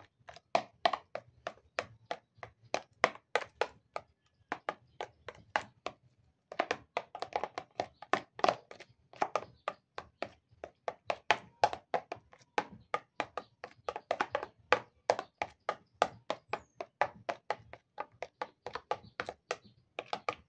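Metal spoon knocking against a plastic bowl in quick, even strokes, about four a second, as thick cream is beaten by hand. The strokes pause for about two seconds a little after four seconds in, then carry on.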